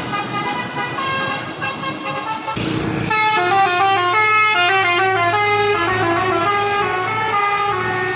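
Intercity bus's 'basuri' telolet musical horn playing a quick tune of stepping notes, with a steady low hum underneath. About three seconds in there is a brief rush of noise, after which the tune comes in louder.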